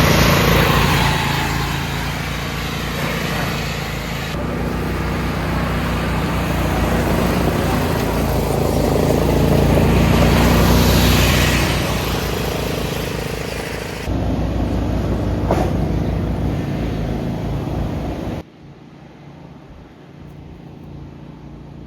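Riding lawnmower's small engine running, its level rising and falling as it is driven. About three quarters of the way through, the engine sound gives way abruptly to a much quieter background.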